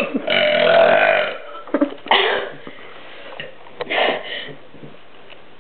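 A man burping repeatedly: one long, pitched burp of about a second near the start, then three shorter burps with pauses between them.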